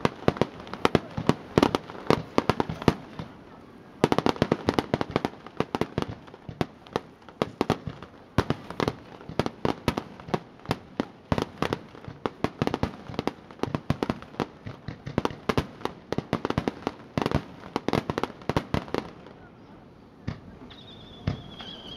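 Fireworks going off in rapid succession: dense sharp cracks and bangs, several a second, that thin out and stop about three-quarters of the way in. A thin falling whistle follows near the end.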